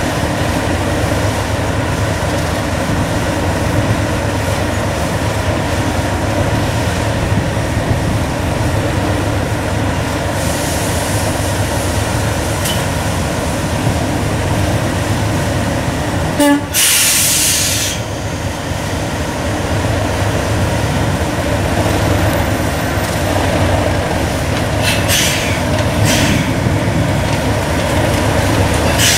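Class 37 diesel-electric locomotive's English Electric V12 engine running steadily at idle. About halfway through comes a sharp hiss of air lasting a second or so, with shorter hisses near the end.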